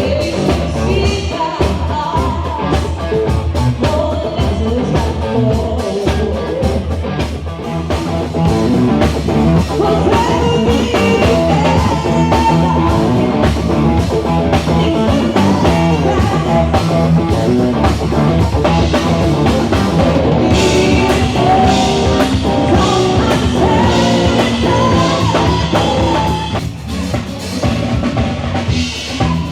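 Live rock band playing a song with drum kit, guitar and a singer.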